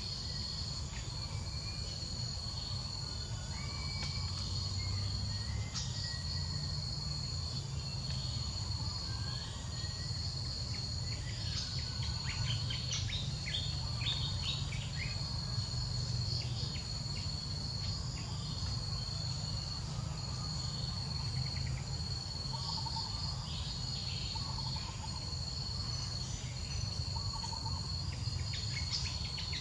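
Insects trilling in a steady high drone that breaks off briefly every second or two, with scattered bird chirps, over a low background rumble.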